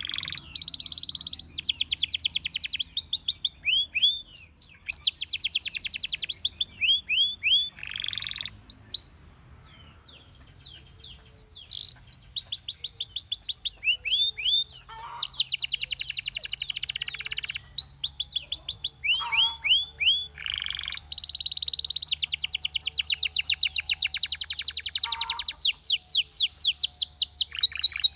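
Canary singing: long, fast trills of rapidly repeated notes mixed with short slurred phrases, pausing for about two seconds near the middle before starting again.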